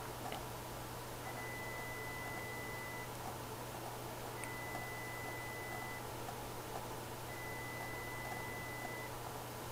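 A steady 2 kHz sine test tone sounding three times, each for about two seconds with a gap of a second or so between, over a faint low hum.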